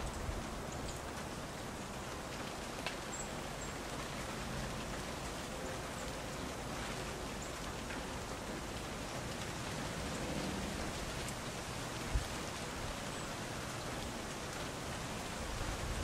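Steady outdoor hiss with faint scattered ticks, a short high chirp about three seconds in, and a single low thump about twelve seconds in.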